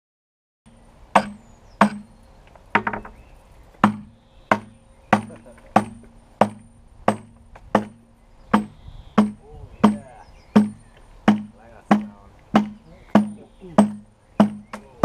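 Axe chopping into the side of a large green log to square it: about twenty steady strokes, roughly one every two-thirds of a second, each a sharp knock into the wood.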